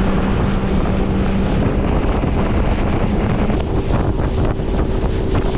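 Heavy wind buffeting the microphone over a boat's motor running with a steady hum, as on a boat under way.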